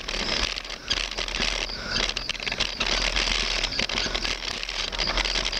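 Bicycle rolling over a rough concrete lane: a steady rush of noise with many small rattles and clicks.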